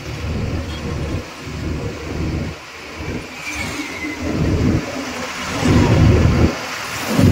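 A truck on the move: steady engine and road noise with heavy low rumbling that swells and drops unevenly, like wind buffeting the microphone.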